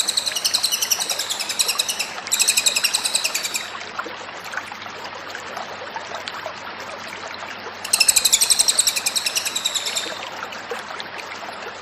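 Cililin songbird singing loud, rapid chattering trills in three bursts of one to two seconds: one at the start, one a little after 2 s, and one about 8 s in. Faint chirps come between the bursts.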